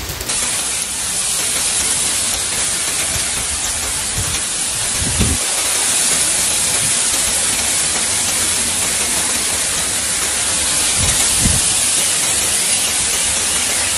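Hail falling heavily and pelting the ground, a dense steady hiss.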